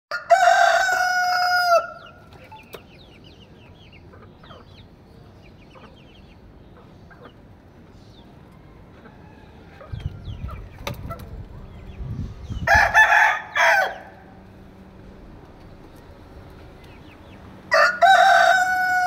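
Rooster crowing: a loud crow of about a second and a half at the start and another near the end. In between, hens cluck softly, a low rumble sounds about halfway, and a louder, harsher call comes about two-thirds through.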